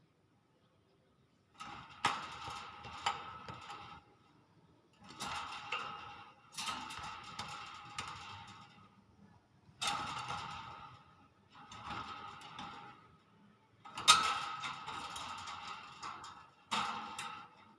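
Hill myna giving about seven harsh, noisy calls of a second or two each, with short gaps between them.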